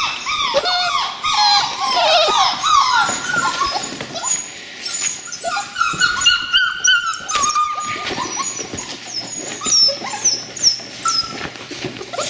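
A litter of seven-week-old border collie puppies whining and yelping, many short high cries that overlap and fall in pitch; the whining is the sign that they are unhappy at being in an unfamiliar room, though not terrified.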